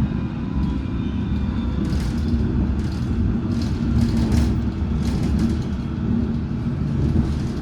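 Metropolitan line train running between stations, heard from on board: a steady low rumble of wheels and running gear on the track, with faint steady whining tones above it.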